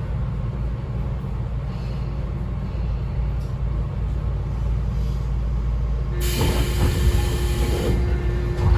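Tobu 9000-series electric train heard from inside the motor car, a steady low rumble at low speed or standstill. About six seconds in, a sudden loud hiss of released compressed air lasts nearly two seconds, with a steady tone starting alongside it.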